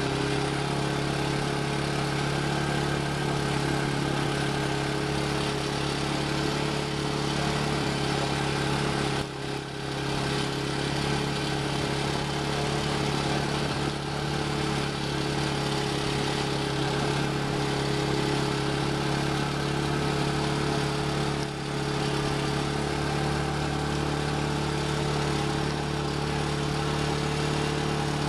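Small engine of an ATV used as a dog-team training rig, running steadily at a constant low speed, with two brief dips, about nine and twenty-one seconds in.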